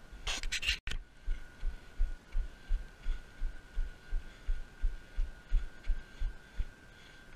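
A runner's footfalls on a synthetic athletics track, coming through a body-mounted action camera as low thuds about three a second and stopping near the end. A short hiss comes just before the strides start, and a faint steady high tone runs underneath.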